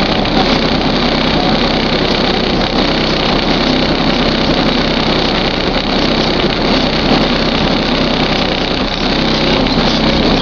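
Van engine running steadily at idle.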